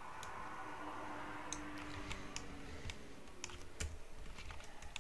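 Computer keyboard keys clicking now and then as shortcuts are pressed, about eight separate sharp clicks spread over the few seconds, over a faint steady room background.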